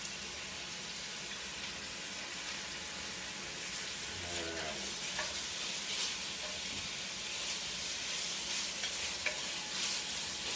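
Ham frying in a pan, its fat rendering out: a steady sizzle with occasional small crackles.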